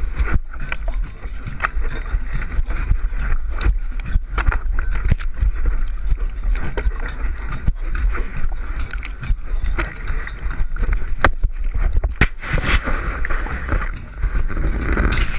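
Handling and wind noise from a camera fixed to a slackline as someone walks it: a steady low rumble of wind on the microphone with many irregular clicks and knocks as the line bounces and sways.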